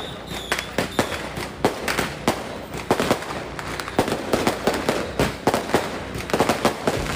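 Firecrackers going off in quick, irregular bangs, several a second, with no let-up.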